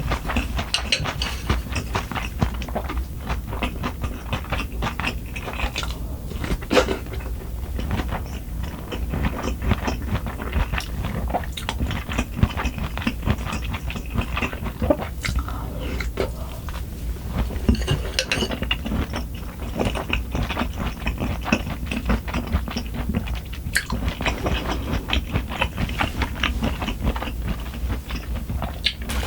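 Close-miked chewing and crunching of food, a steady run of wet, crackly bites with a few sharper clicks.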